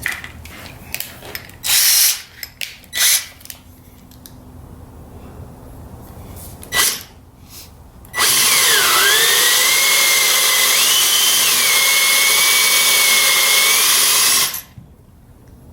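Power drill boring a 20 mm hole into a cherry drawer front. A few short loud bursts come in the first seconds, then about six seconds of steady drilling; the motor's whine dips as the bit bites, recovers, and cuts off sharply.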